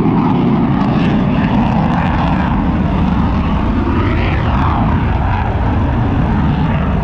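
Jet noise from a Thunderbirds F-16 fighter on a slow, low-speed pass: a loud, steady engine sound, with a pitch that rises and falls about four seconds in.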